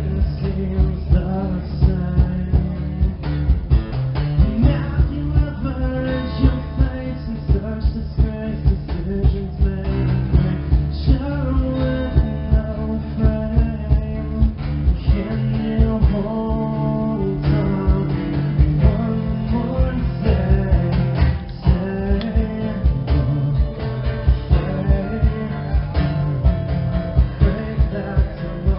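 Live acoustic rock band performance: strummed guitar and sung vocals over a steady beat.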